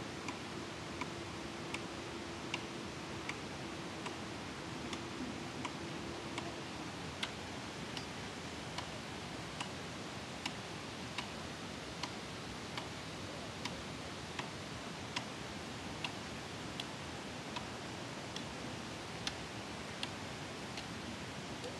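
Steady rushing noise of a swollen, flooding river. A faint, very regular tick comes through about every 0.8 s, and a steady low hum runs for the first seven seconds or so.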